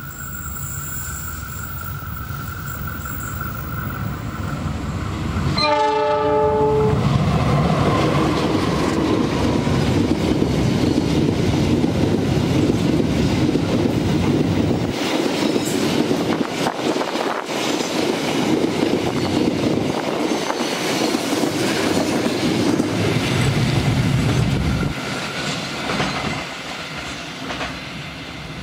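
A CC206 (GE CM20EMP) diesel-electric locomotive approaches and gives one short horn blast about six seconds in. It then passes close with its engine running, followed by a long train of freight wagons clattering over the rail joints. The sound drops off sharply near the end.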